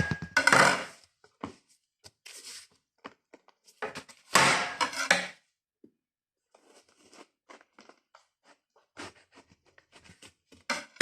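A knife cutting watermelon on a cutting board: irregular scrapes, slicing noises and knocks, with two louder bursts of cutting near the start and about four seconds in.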